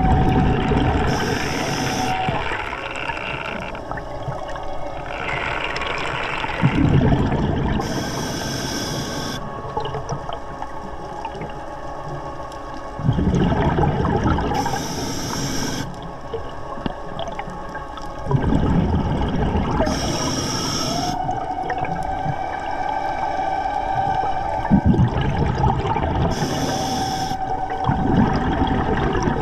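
Scuba diver breathing underwater through an Atomic regulator: a short hiss of each inhale and a longer rumble of exhaled bubbles, repeating about every six seconds. A steady whine from the Tusa dive scooter's motor runs at the start and again over the last third.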